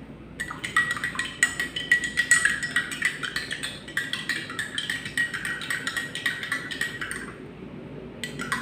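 Spoon stirring wheatgrass powder into a glass of cold water, clinking rapidly and ringing against the glass. The clinking stops for about a second near the end, then starts again.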